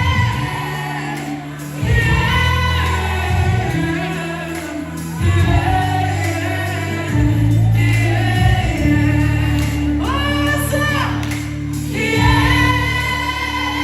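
Music: a choir singing long held notes in phrases a couple of seconds apart, over a steady low bass accompaniment.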